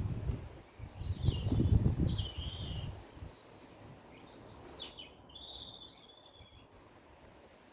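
Wild birds singing: a few quick falling chirp phrases, then a drawn-out whistled note about six seconds in. A low rumbling noise, loudest in the first three seconds, lies under the first phrases.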